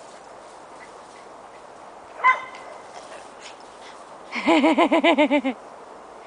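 A dog playing: a single short yelp about two seconds in, then a quick run of about nine yapping barks a little past four seconds in, the loudest part.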